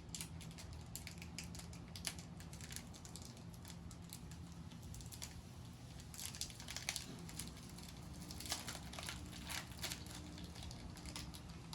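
Faint, irregular crackling and clicking of a foil Pokémon booster-pack wrapper being opened and the cards inside being handled.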